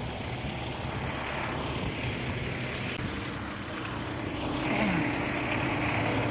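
A motor running steadily under a noisy hiss, with a higher hum joining about four seconds in and the sound growing a little louder.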